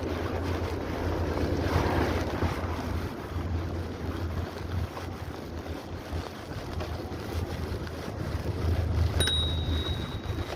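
Wind rushing over the microphone of a camera riding along on a bicycle, with a steady low rumble. About nine seconds in, a click is followed by a short high steady tone lasting about a second.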